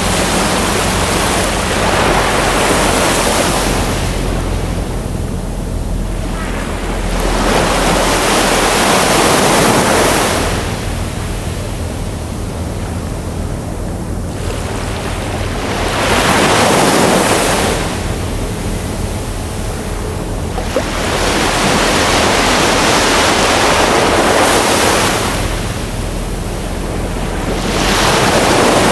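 Ocean surf: waves rushing in and washing out in slow swells, one every five to seven seconds, over a steady low rumble.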